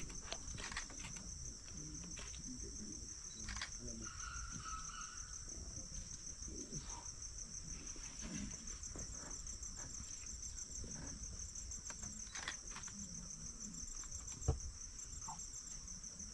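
Insect chorus: a steady high-pitched buzz with a fast pulse, with scattered faint clicks and one sharp thump about fourteen seconds in.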